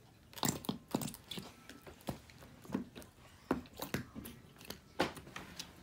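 Grape jelly slime being squished and pressed back into its plastic jar, with a string of short, irregular wet squelches and clicks.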